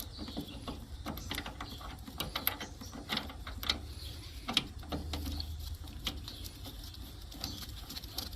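Irregular small metallic clicks and clinks of a refrigerant manifold hose fitting being screwed onto a liquid-line service port by hand, with a low steady hum underneath.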